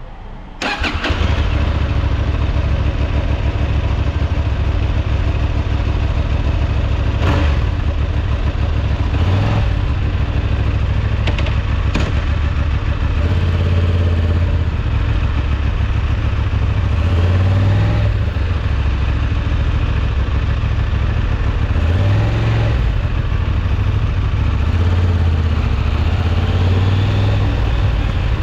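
Honda Transalp XL750 motorcycle's parallel-twin engine firing up about a second in, then idling, with the throttle blipped several times so the revs rise and fall.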